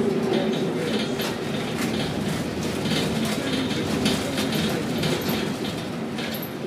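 Container gantry crane machinery running: a steady mechanical rumble with a whine and frequent clicks and clanks, like wheels rolling on rails.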